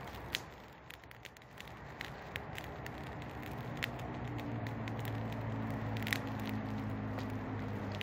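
Large brush bonfire burning, with irregular sharp crackles and pops over the rush of the flames. A steady low hum comes in about halfway through and slowly grows.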